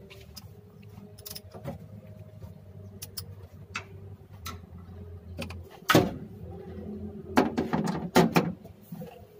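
Irregular metal clicks and clinks of a 10 mm socket wrench and bolts on the timer-spring cover of an L300 diesel injection pump as the bolts are loosened. The loudest knock comes about six seconds in, followed by a cluster of clinks. A low steady hum underneath stops just before six seconds.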